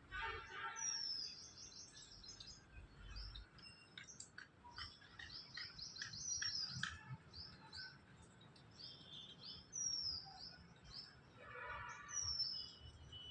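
Songbirds singing: high, falling whistled notes repeated four or five times, with quick runs of short chirps between them. Lower, coarser calls come near the start and again near the end.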